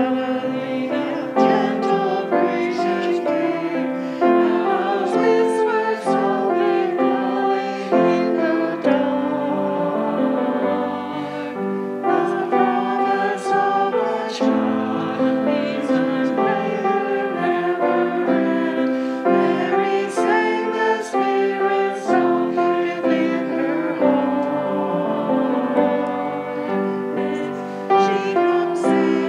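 A hymn sung with piano accompaniment, in steady sustained notes that carry on without a break.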